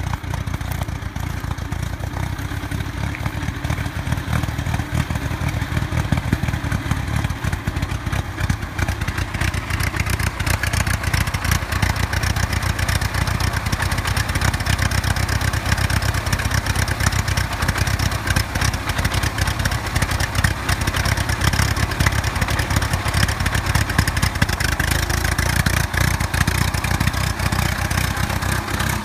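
1920 Fordson Model F tractor's four-cylinder engine running steadily as it drives along, with a rapid firing beat. It grows louder and brighter about a third of the way in as the tractor comes closer.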